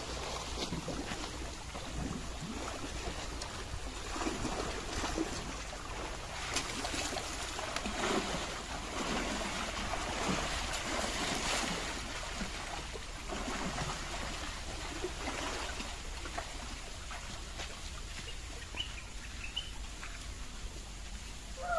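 Muddy stream water flowing and splashing as Asian elephants, a baby among them, wade and wallow in it, with irregular splashes that come thickest in the middle stretch.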